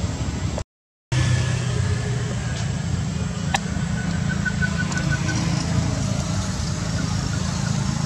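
A steady low motor hum, like a vehicle engine idling, broken by a half-second dropout to silence about a second in.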